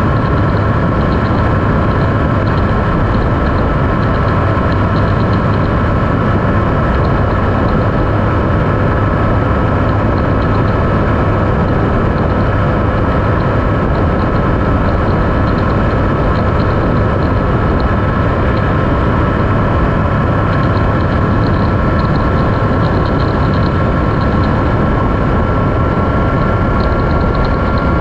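Triumph Speed Triple 1050's three-cylinder engine running at a steady cruise, with the engine note rising slightly over the last several seconds.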